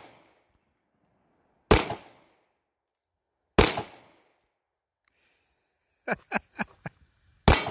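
Sarsilmaz B6 9mm pistol firing slow aimed single shots, three about two seconds apart, each a sharp crack with a short echoing tail. A quick run of about five quieter sharp cracks comes about six seconds in, and the last shot is followed by a faint ringing tone.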